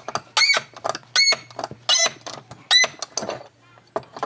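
Seized transom clamp screw on a Johnson 25 hp outboard squeaking as a pipe wrench turns it loose in its threads. The squeaks are short and high, four loud ones about three-quarters of a second apart, with softer ones between.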